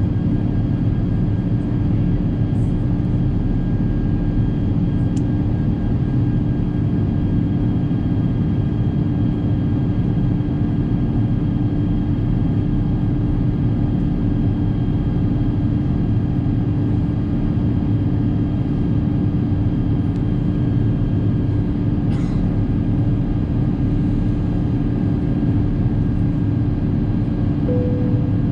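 Steady cabin drone of an Airbus A350-1000 airborne, heard from a window seat: engine and airflow noise with a constant low hum.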